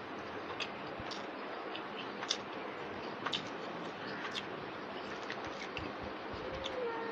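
Eating by hand: scattered small clicks and smacks as fingers mix rice on a plate and the eater chews, over a steady hiss.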